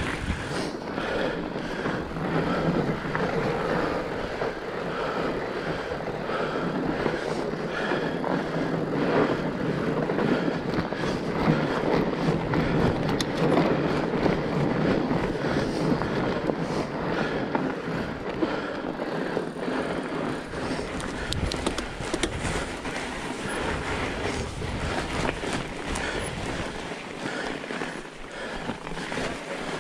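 Fat bike ridden along a trail: steady rolling noise from the wide tyres, with the bike rattling over the uneven ground throughout.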